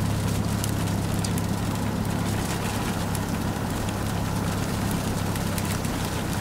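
An engine idling steadily, a low even hum with faint scattered ticks over it.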